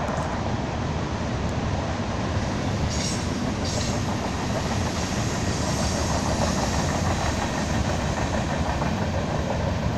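BNSF freight train rolling past, a steady rumble and clatter of its cars' wheels on the rails.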